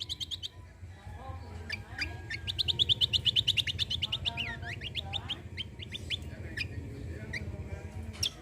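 Kecial kombok songbird singing vigorously: rapid rattling trills of short high notes, about ten a second, broken by sweeping whistled notes, over a steady low hum.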